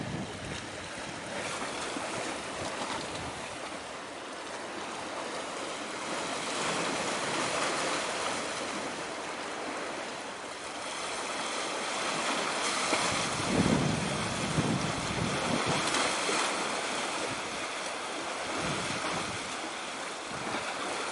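Wind blowing over the microphone and sea waves washing, a steady rushing hiss with a few stronger gusts a little past the middle.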